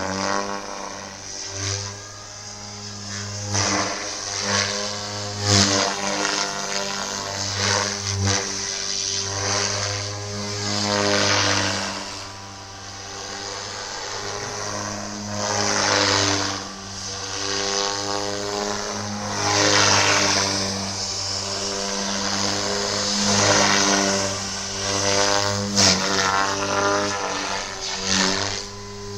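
Electric radio-controlled helicopter (SAB Goblin 420) in flight. Its motor and rotor hum runs steadily, with the rotor whoosh swelling and fading every few seconds. The pitch slides up and down as it passes and manoeuvres.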